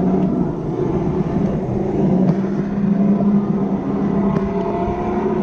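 Electric go-kart driven at speed: the motor's steady whine, shifting slightly in pitch, over rumbling tyre and road noise.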